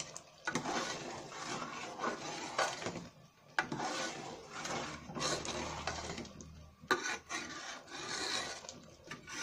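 A metal spoon stirring thick black masoor dal in a metal pot, scraping against the pot in repeated strokes, with a couple of sharp clinks where the spoon knocks the pot.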